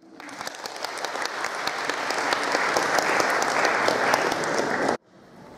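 Audience applauding, growing louder over the first few seconds, then cutting off suddenly about five seconds in.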